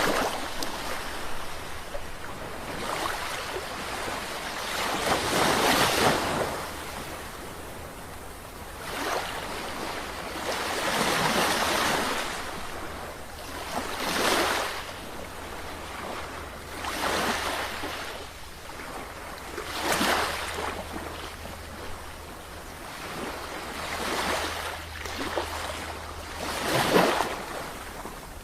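Sea waves breaking and washing in, each surge swelling and fading every two to four seconds, over a steady low rumble.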